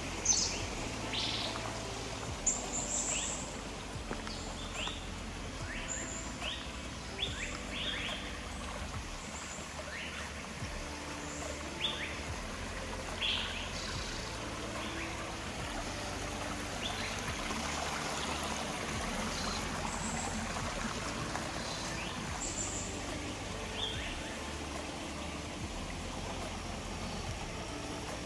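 Forest birds calling with many short chirps and whistles, thinning out after the first half, over the steady trickle of a shallow rocky stream.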